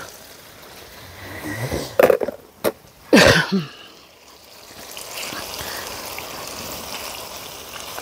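Short coughs about two and three seconds in, with a click between, then the steady sizzle of meat frying in a pan.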